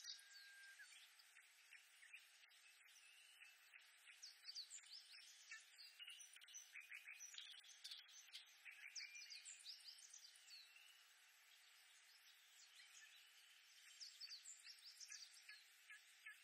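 Oriental reed warblers singing: fast runs of repeated chirping notes in phrases, with a lull about two-thirds of the way through, over a faint steady background hiss.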